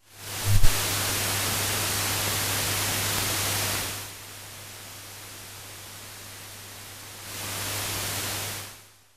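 Steady hiss and static over a low electrical hum, with a pop about half a second in. The hiss drops at about four seconds, swells again near the end and then cuts off. This is noise on an otherwise mute film soundtrack.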